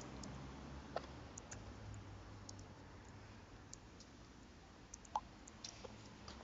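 Faint, scattered clicks of fingertip taps on a phone's touchscreen keyboard as a short message is typed and sent, over a low steady background noise.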